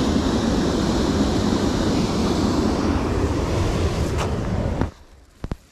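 Creek water pouring over a small waterfall: a steady rushing that cuts off abruptly near the end, leaving a few faint clicks.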